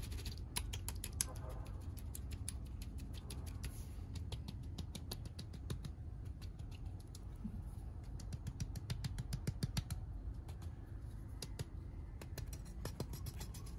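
Rapid small clicks and scraping from a hand and a small trowel working wet cement mix in a pot mold, over a low steady rumble.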